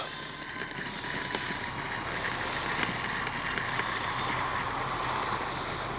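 Steady whir of the E-flite Piper Cherokee RC plane's electric motor and propeller under power, heard at a distance.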